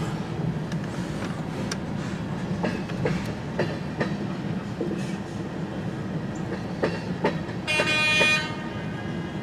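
CN freight train's cars rolling past, wheels clicking over rail joints, with a short horn blast about eight seconds in.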